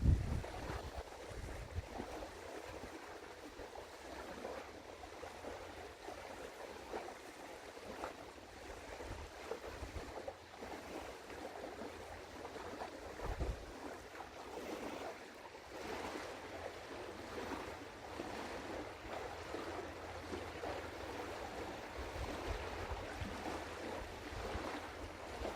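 Steady rushing of wind and water, with gusts of wind rumbling on the microphone, one stronger gust about halfway through.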